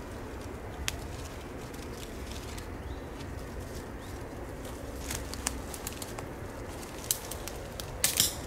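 Leaves and twigs rustling and crackling as a leafy sprig is handled and someone moves on the forest-floor litter: a few scattered sharp crackles, with the loudest brief burst near the end.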